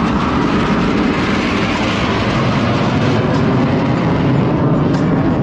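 BAE Hawk jet trainers passing in formation overhead: a loud, steady roar of jet engines that swells slightly about two seconds in.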